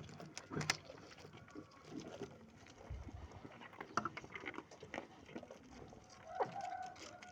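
Animals moving about in a goat pen: scattered light clicks and knocks, with a short, steady pitched call starting about six seconds in.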